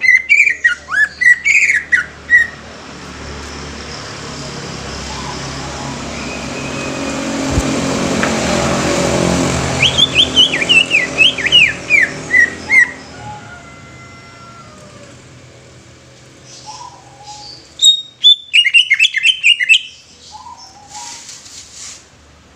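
Green leafbird (cucak ijo) singing in three bursts of fast, downward-sweeping whistled notes: at the start, about ten seconds in, and about eighteen seconds in. Between the first two bursts a passing vehicle swells and fades.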